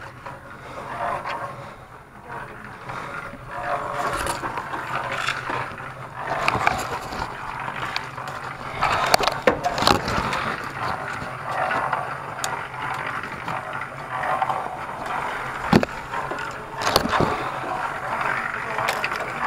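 Grapevine leaves rustling and grape bunches being handled close by during hand-picking, with scattered sharp clicks and knocks.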